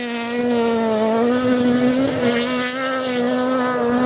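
Rally car engine held at high revs in a sustained pull, one steady buzzing note that wavers only slightly.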